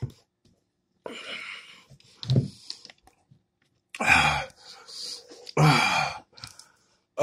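A man coughing and clearing his throat in rough bursts, with breathy exhales between, the loudest two in the second half, as the extreme-heat pepper sauce burns his mouth and throat.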